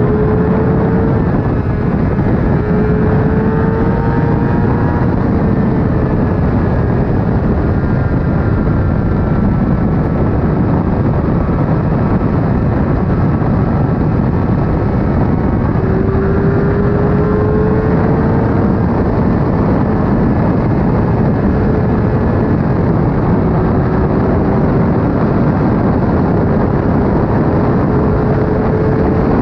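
Suzuki GSX-R 750's inline-four engine at highway speed, its note climbing slowly several times as the bike accelerates in a high gear. Heavy wind rush covers much of the engine.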